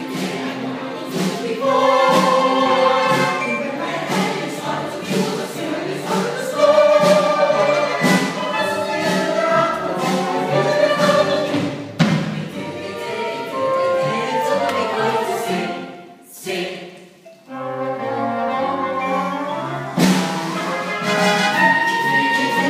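A stage cast singing together as a choir over instrumental accompaniment, in held, phrased notes. The music drops away briefly about three-quarters of the way through, then the singing comes back in.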